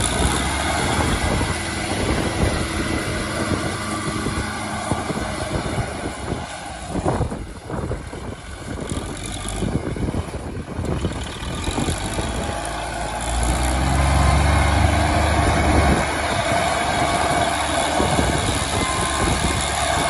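Belarus 820 tractor's four-cylinder diesel engine running under load as the tractor pushes a front blade through deep mud, with a heavier low rumble for a couple of seconds about two-thirds of the way through.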